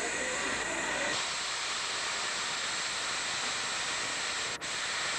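Steam hissing from a miniature steam locomotive, a steady loud hiss. A low rumble beneath it stops about a second in, and the sound drops out for an instant near the end.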